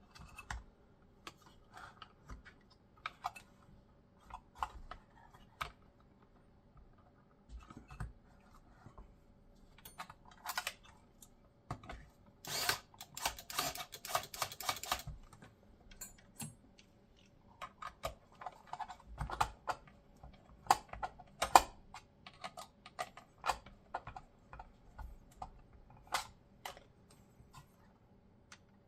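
Scattered clicks, taps and knocks of plastic and metal parts being handled as a replacement power supply is fitted back into an Xbox Series X console, with a dense run of rattling clicks about 13 seconds in.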